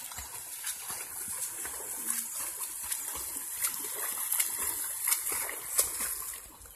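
A swimmer's overarm strokes splashing in river water, many short splashes over a steady rush of moving water.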